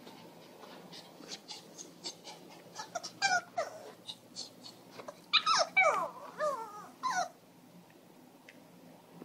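Pomeranian–Shih tzu mix dog whining and whimpering, worried at being left alone. After a few soft short sounds, it gives a run of high cries that slide down in pitch, loudest about five to seven seconds in.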